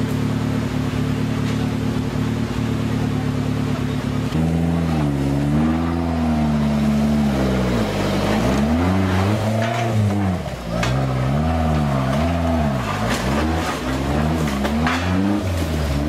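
Off-road competition 4x4's engine running at a steady pitch for about four seconds, then revved up and down again and again as the vehicle crawls up a steep, muddy bank.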